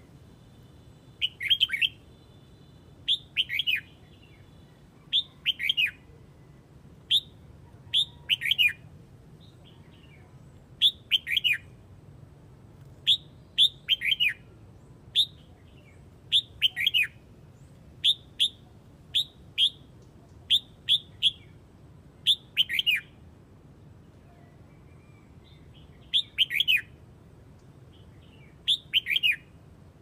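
Red-whiskered bulbul giving its flock call: short, loud phrases of a few falling whistled notes, repeated every second or two, with a pause of a couple of seconds near the end.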